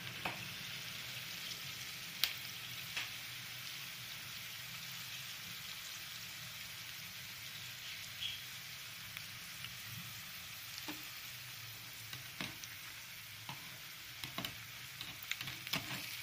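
Battered cauliflower pieces deep-frying in hot oil in a steel kadai: a steady sizzle with scattered sharp pops and clicks, a few more of them near the end.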